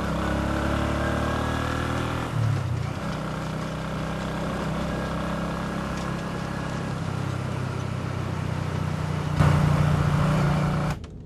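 Small motorbike engine revving up and running steadily, with a louder stretch near the end that cuts off suddenly.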